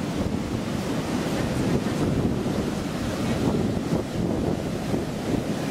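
Ocean surf breaking and washing up the beach in a steady rush, with wind buffeting the microphone in a low rumble.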